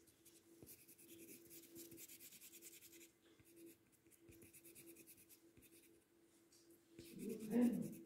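Blue wax crayon scribbling back and forth on paper, colouring in the sky in quick, soft scratchy strokes. A faint steady hum runs underneath, and a brief low sound comes near the end.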